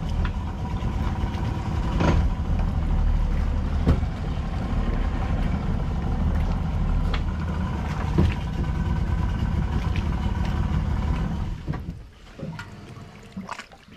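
Boat engine running steadily at low revs, with a few knocks, then stopping near the end.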